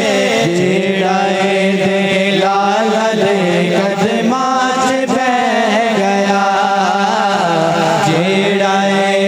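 Men singing a naat, an unaccompanied Islamic devotional song, into microphones, with long held notes that waver and ornament in pitch.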